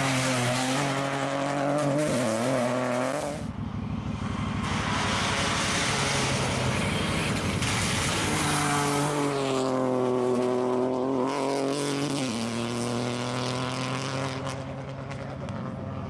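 Peugeot 208 Rally4 rally cars' turbocharged three-cylinder engines at high revs as the cars power through bends and pass. The engine note rises and falls over several passes, changing abruptly around three seconds in and again near twelve seconds.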